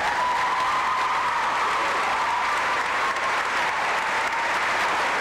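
An audience applauding, with a thin high tone that rises at the start and is held under the clapping.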